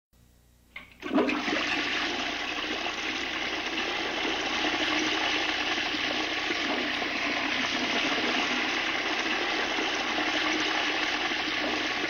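Toilet flushing: a short click, then water rushes in suddenly about a second in and keeps running steadily.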